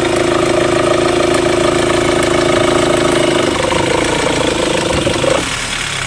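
Mahindra XUV500 engine running with the AC on, its accessory belt drive making a steady whine over the engine sound: the noise the mechanic traces mainly to a faulty belt tensioner. The whine drops away about three and a half seconds in and the rest fades near the end.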